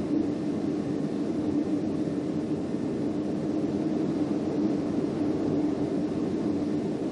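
Steady rush of extreme thunderstorm wind, gusting to around 100 mph, heard from indoors through a closed window, with a faint steady hum running under it.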